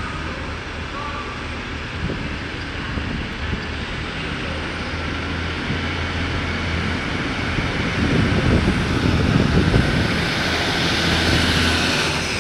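Class 156 diesel multiple unit pulling away and passing close, its underfloor Cummins diesel engines running under power with a steady low drone. The drone and the rumble of the wheels grow louder as the train goes by, loudest about eight to ten seconds in.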